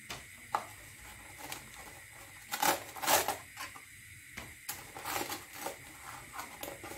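Sugar cubes clicking and rattling as a hand picks them out of a metal tin, in a series of separate clicks with a few short rattling bursts.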